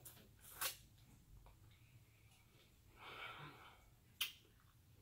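Faint eating sounds of corn on the cob being bitten and chewed: sharp mouth clicks and smacks about half a second and four seconds in, with a short spell of chewing noise around three seconds.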